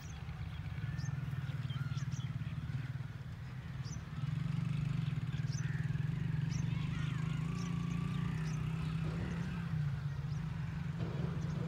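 A steady low drone that grows louder about four seconds in, with short, high bird chirps scattered over it.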